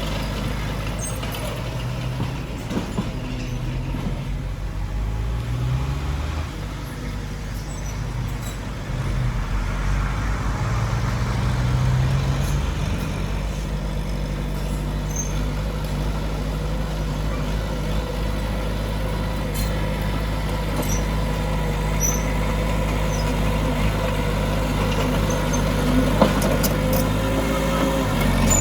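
Heavy diesel engines of earthmoving machinery running, the engine pitch rising and falling several times as the machines work under load, with a sharp metallic clank near the end.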